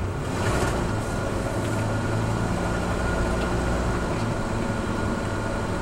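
Gas Class A motorhome's engine running steadily with road noise, heard from inside the cab as it drives.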